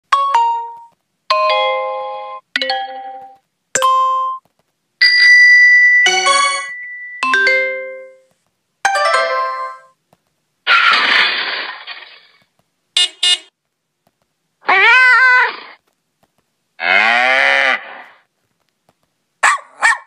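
A run of TextNow app notification sounds played one after another with short gaps, about a dozen in all. The first are bright electronic chimes and dings. The later ones are noisier bursts and warbling tones that slide up and down.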